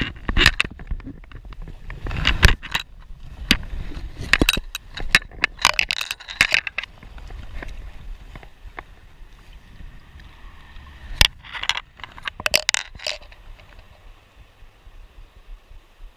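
Bursts of clicking and scraping on a chest-mounted GoPro housing: the angler's forceps bounce against the case and his clothing rubs on it as he moves. Two final bunches of clicks come about eleven to thirteen seconds in, then only the creek's flow is left near the end.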